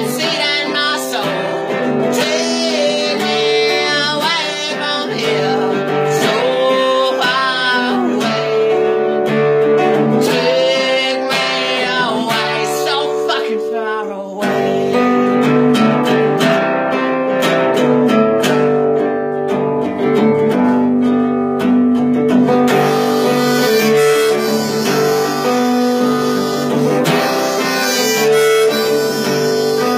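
Live blues music: harmonica playing over acoustic guitar, with a brief dip about halfway through before the music comes back fuller.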